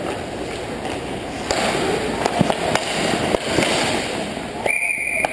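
Ice hockey play close to the goal: skate blades scraping the ice and sticks clacking, with several sharp knocks in the middle of the scramble in front of the net.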